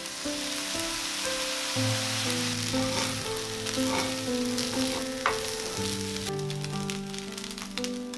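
Fried rice sizzling in a hot pan as it is stirred with chopsticks, a steady frying hiss with a few sharp clicks. Gentle instrumental background music plays over it.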